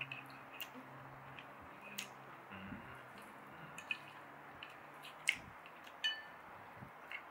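Chopsticks and a wooden spoon clicking and tapping against a ceramic plate as noodles are mixed, with soft, wet squishing of the noodles. Light irregular clicks throughout, the sharpest a little past the middle, over a faint steady low hum.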